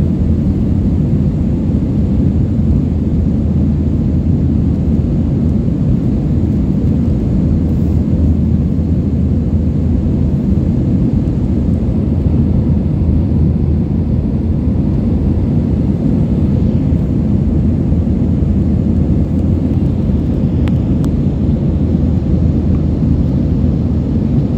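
Airliner cabin noise in cruise: a steady low rumble of engines and rushing air heard from inside the cabin, with a faint even hum.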